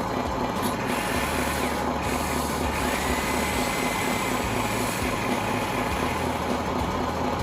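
Small electric motors and gear trains of radio-controlled construction models running steadily, with a mechanical whirring and rattling.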